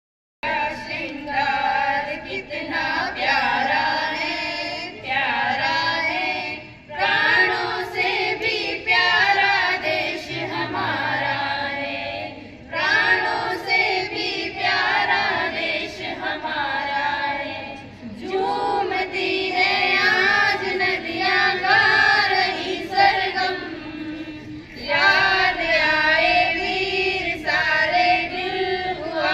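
A group of young women singing together in chorus, one of them into a handheld microphone. They sing in phrases of about six seconds, with short pauses between.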